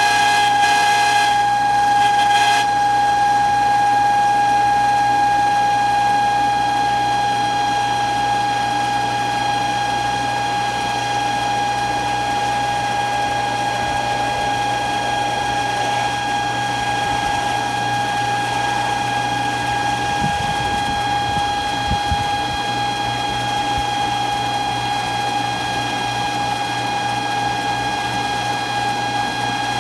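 Pool pump with a Centurion motor running with a really loud, steady high-pitched squeal: one held tone with overtones that keeps on after the pump housing has filled with water.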